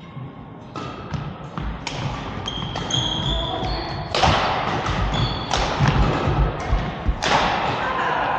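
A badminton doubles rally. Racket strikes on the shuttlecock are mixed with short shoe squeaks on the court floor and thudding footsteps. The two loudest hits come about four and seven seconds in.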